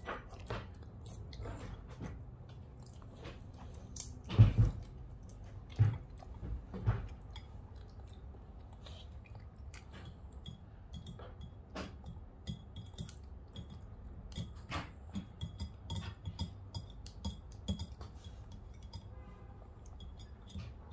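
Small children eating dry fried instant noodles: chewing, with plastic forks tapping and scraping on a ceramic plate in scattered small clicks. A few louder knocks come about four to seven seconds in.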